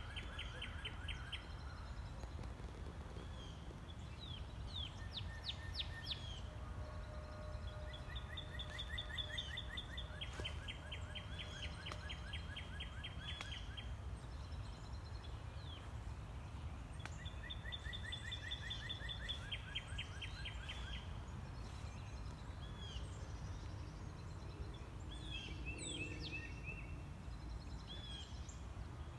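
Songbirds singing, repeating phrases of rapid trilled notes every few seconds, with shorter calls scattered in toward the end, over a steady low rumble of outdoor background noise.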